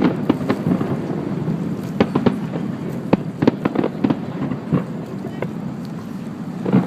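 Fireworks display: scattered bangs and sharp crackles, some in quick clusters, over a continuous rumbling background.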